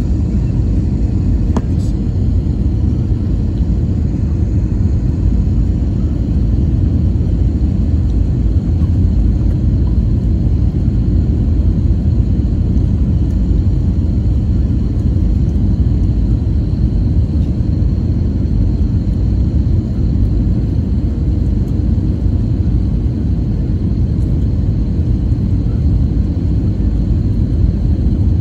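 Steady low rumble of an airliner's engines and airflow heard inside the cabin from a window seat by the wing, as the jet descends on approach, with a faint steady high whine above it.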